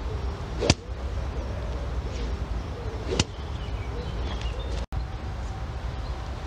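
Two sharp clicks about two and a half seconds apart, the first the louder, over a steady low rumble.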